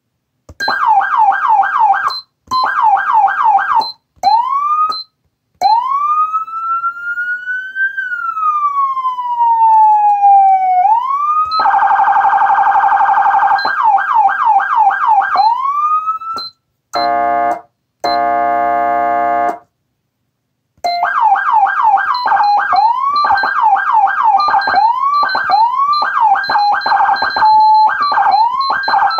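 Federal Signal SmartSiren electronic siren switched rapidly between tones: fast yelp sweeps, a quick manual rise, one slow wail rise and fall, then rapid yelp and warble again. About two-thirds in come two short blasts of the electronic air horn, a brief pause, and then fast yelp and priority sweeps chopped and switched in quick succession.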